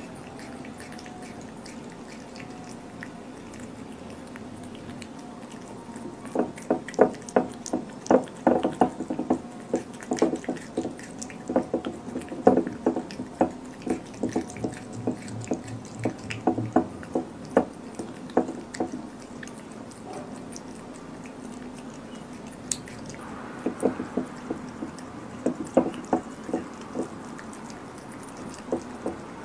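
A cat chewing and licking raw pork slices: wet smacking chews in quick runs of about two or three a second, starting about six seconds in, pausing for a few seconds, then resuming. A steady low hum runs underneath.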